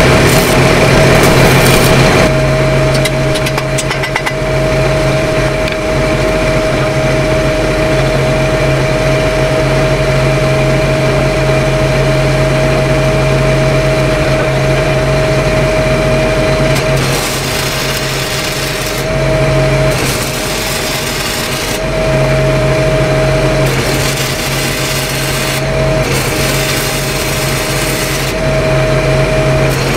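Engine-driven welding machines running under load with a steady hum, under the hissing crackle of stick-welding arcs on a 12-inch pipe branch joint. The crackle breaks off briefly a few times in the second half as the welders stop and restart their rods.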